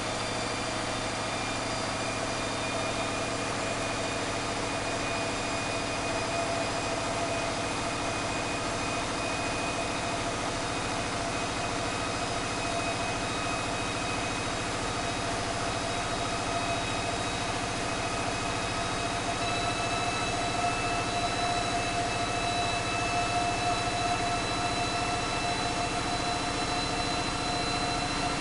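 Caterpillar 3516B V16 diesel engine running steadily on an engine dynamometer, a deep drone with a steady whine, its pitch creeping slightly upward and getting a little louder in the second half.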